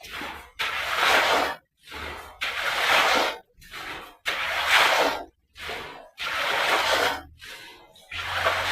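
A brush sweeping excess standing water off a curing stone floor, in repeated swishing strokes about one a second.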